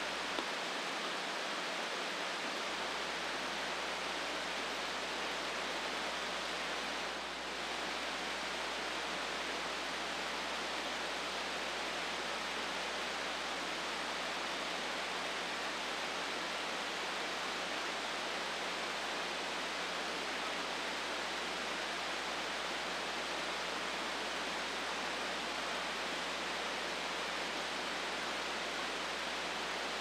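Buttermilk Falls cascading in full flow over its stepped rock ledges, swollen after days of rain: a steady, even rush of falling water, with a slight dip about seven seconds in.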